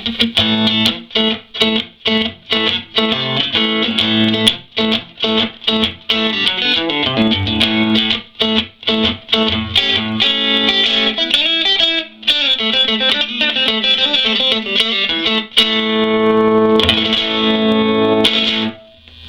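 Electric guitar, a 1983 Fender Stratocaster on its neck pickup with the tone all the way up, played through a 1956 Fender Princeton tweed tube amp. It plays a run of picked notes and short chords, then longer held chords from about three quarters of the way in, and stops just before the end.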